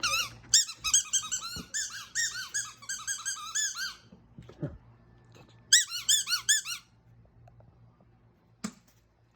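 A German Shepherd chewing a squeaky ball: rapid runs of high squeaks, each rising and falling in pitch, for about four seconds, then a second shorter run about six seconds in.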